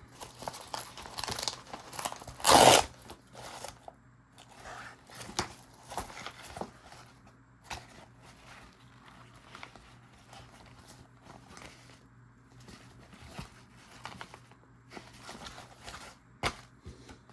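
A small fabric pouch being handled: irregular rustling, scraping and crinkling of the fabric and fittings. There is a louder burst about two and a half seconds in and a single sharp click near the end.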